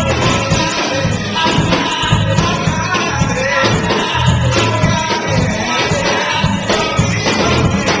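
Live gospel music: a choir singing over a band with a steady beat and a strong bass line.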